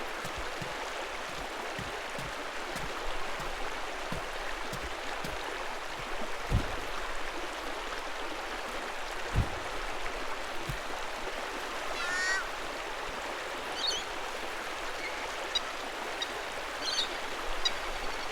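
Steady rush of running water, with a couple of low thumps and, in the second half, a few short bird chirps.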